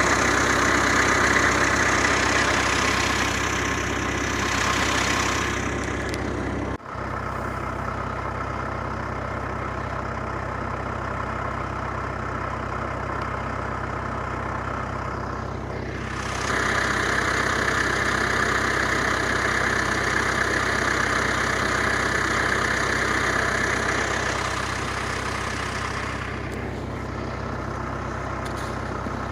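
An engine idling steadily, a low even drone. A hiss rises over it for the first few seconds and again for about ten seconds in the second half, and the sound drops out for an instant about 7 seconds in.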